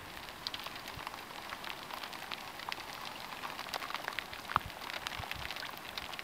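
Rain falling on a river's surface: a steady hiss scattered with many small drop ticks.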